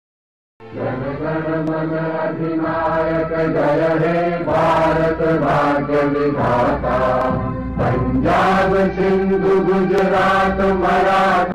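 Chanted music: voices holding notes that step from pitch to pitch over a steady low drone, starting after a moment of silence.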